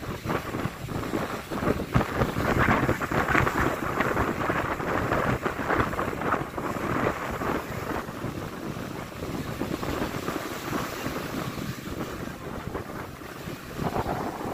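Surf breaking and washing up the beach, with wind buffeting the microphone.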